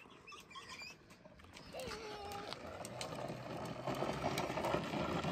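Child's tricycle rolling over asphalt, its wheels rattling, growing steadily louder as it comes closer. Faint voices in the first two seconds.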